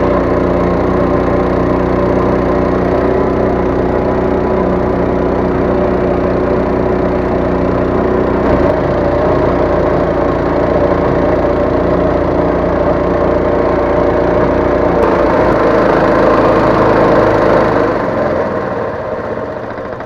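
Small boat's outboard motor running steadily under way; near the end it is throttled back and the engine note drops away.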